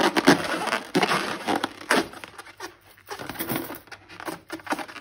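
Slime being squished and worked by hand: a dense crackle of small wet clicks and squelches that thins out to scattered pops after about two seconds.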